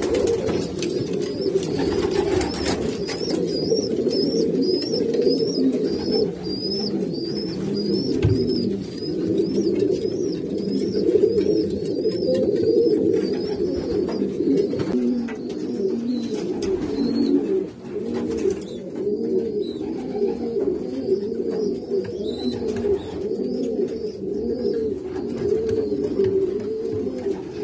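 Many racing pigeons cooing together in their loft, a continuous, layered low cooing from several birds at once. Through the first half a high chirp repeats about twice a second, then fades out.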